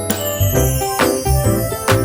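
Background music: an upbeat track with keyboard notes over a steady bass and drum beat.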